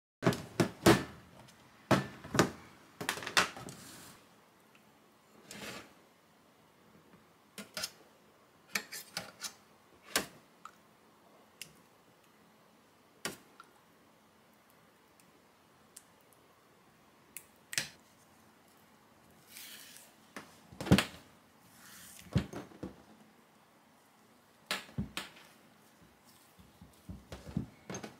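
Kitchen handling sounds: scattered clinks, taps and knocks of a spoon, containers and food against stainless steel and crockery, with quiet gaps between. They are loudest in the first second or two and again around the middle.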